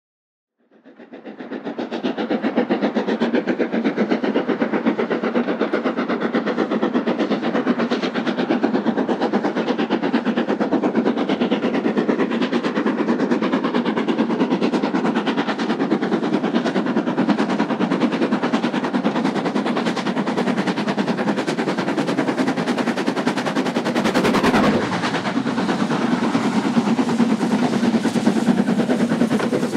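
Three-cylinder LMS Jubilee class 4-6-0 steam locomotive approaching and working hard, its exhaust beats coming in a rapid, steady stream. The sound fades in about a second in, and there is a brief rush of noise near the end.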